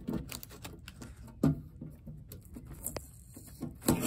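Handling noise of unpacking: paper and bubble-wrap packing rustling, with scattered light knocks as the boxed fire alarm control panel is moved, a sharper knock about a second and a half in and a louder bump near the end.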